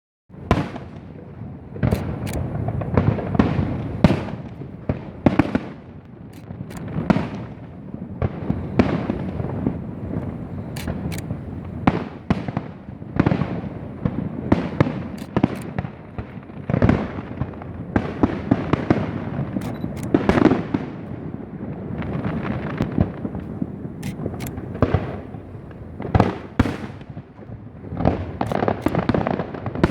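Aerial fireworks display: a continuous barrage of shell bursts and booms, irregularly spaced, often less than a second apart, with sharp high cracks among the deeper booms and a rumbling echo trailing each.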